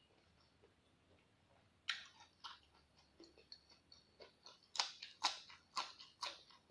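A person chewing crunchy raw vegetables. The first two seconds are nearly quiet, then crisp crunches begin and come about twice a second near the end.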